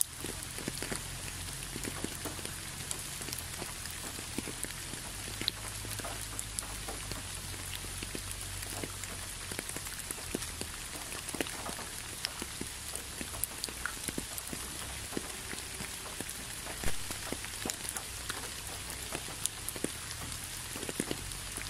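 Steady rain: an even hiss with many separate drops tapping close by, and one louder tap about three quarters of the way through.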